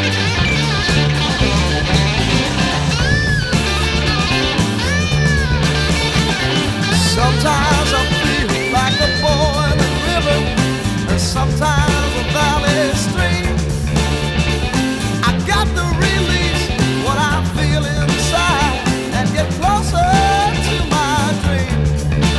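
Blues-rock song: a Gibson EB-0 electric bass, fitted with Seymour Duncan SRB-1 pickups and run through a Seymour Duncan Studio Bass compressor, plays a steady, even-level bass line under a lead line with wide bent notes that rise and fall.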